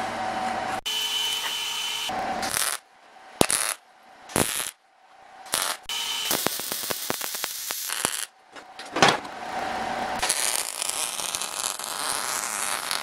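MIG welder crackling and sizzling as it lays tack welds and short beads on steel, in a series of bursts that stop and start: a few brief tacks near the beginning, then longer runs.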